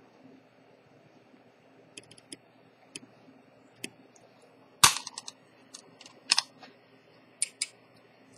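Small, sharp clicks and taps of a watchmaker's screwdriver and tools on a black ceramic automatic watch's case and movement, scattered and uneven, the loudest about five seconds in. A faint steady hum runs underneath.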